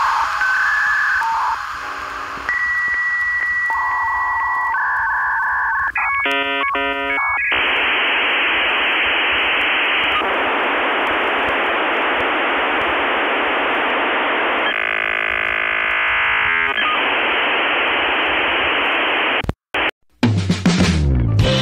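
Telephone-line electronic sounds in the pattern of a dial-up modem connecting: a series of steady beeps, a quick warbling exchange of tones, then a long stretch of hiss. It drops out briefly near the end, and music comes back in.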